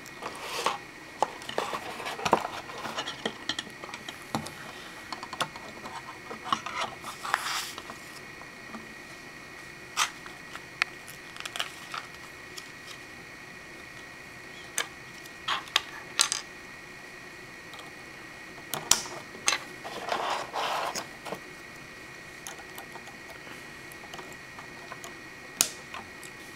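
Plastic Lego Bionicle pieces being handled and snapped together by hand: scattered sharp clicks and short scrapes with quiet gaps between them, and a brief rustle about three-quarters of the way through. A faint steady high hum runs underneath.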